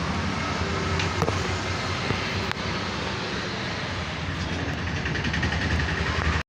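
Steady rumble of road traffic and engines, with a few sharp clicks about a second in and again a little later.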